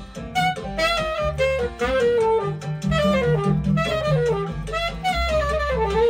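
Saxophone playing a jazzy melody of quick, moving notes with some sliding falls in pitch, over low bass notes from an accompaniment.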